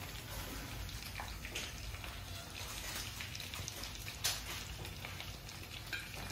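Chicken bites deep-frying in hot oil in a karahi: a steady crackling sizzle, with a short clink about four seconds in.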